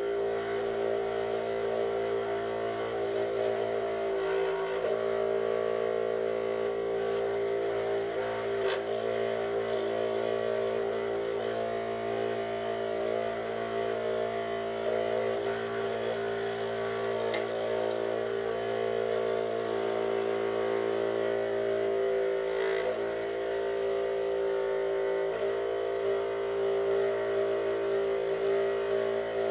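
Electric scroll saw running with a steady hum, its blade cutting through 5 mm plywood.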